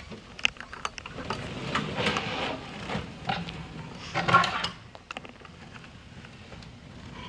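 Irregular knocking and clattering of hard objects being handled, with a louder clank about four seconds in.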